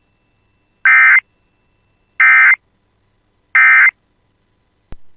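Emergency Alert System end-of-message data tones: three short, loud, harsh electronic data bursts, evenly spaced about a second and a half apart, signalling the end of the alert. A brief click comes just before the end.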